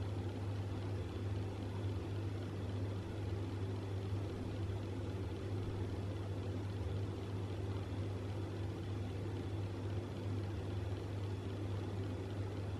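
Steady low machine hum with a light hiss, unchanging throughout.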